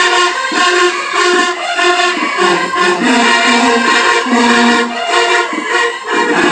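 Marching band's brass and drums playing loudly, sustained chords over a steady beat.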